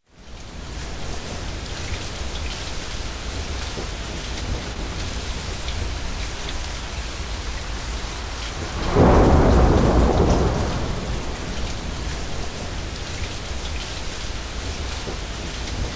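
Steady rain falling in a thunderstorm, fading in at the start, with scattered drips. About nine seconds in, a roll of thunder swells for a couple of seconds and slowly dies back into the rain.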